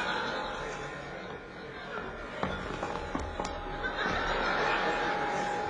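Audience laughing in a large hall, the laughter swelling about four seconds in. A thin steady tone runs under it for much of the time, with a few sharp clicks.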